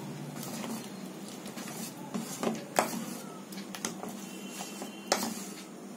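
Spoon stirring thick, wet batter in a stainless steel bowl: irregular clicks and taps of the spoon against the side of the bowl, over a steady low hum.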